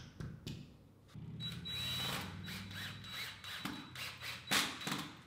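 A few light hammer taps, then a cordless drill runs steadily for about two and a half seconds, with several sharp knocks near the end.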